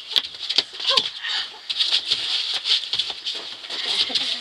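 Children playing on a packed-earth floor: scuffling feet, knocks and a short squeal about a second in, over a steady high-pitched chirring.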